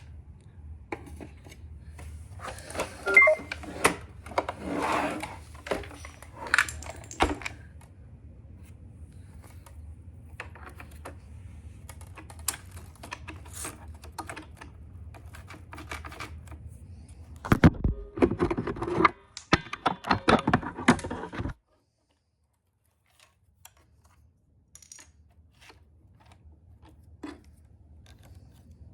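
Loose LEGO bricks clattering and rattling as a robot vacuum runs over them, over the vacuum's faint low motor hum. The clatter comes in irregular bursts, loudest in two dense stretches, and everything cuts off suddenly about two-thirds of the way through.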